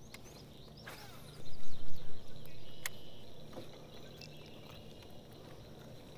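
Rumbling handling noise on the microphone: a run of loud low bumps lasting about a second, starting about a second and a half in, as a hooked bass is gripped and shaken close to the camera while the lure is worked out. A faint steady low hum lies underneath.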